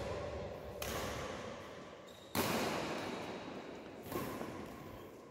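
Badminton rackets striking a shuttlecock during a rally: three sharp hits about a second and a half apart, the middle one the loudest, each echoing through the hall.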